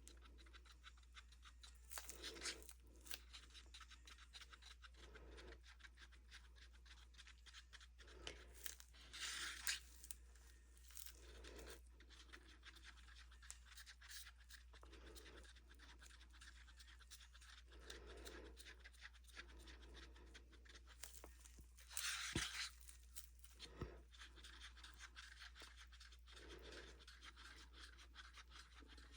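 Faint, scattered scraping and tapping of small stir sticks against plastic mixing cups while resin and pigment are mixed, with two brief louder rustles, one about ten seconds in and one near the end.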